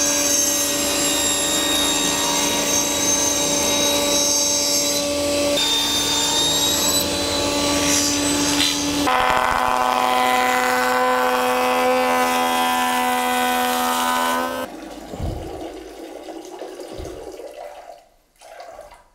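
Sliding table saw running and ripping old boards to a straight edge: a steady motor hum with a high whine over it. The pitch shifts about nine seconds in, and the saw stops about fifteen seconds in, leaving quieter noise that fades away.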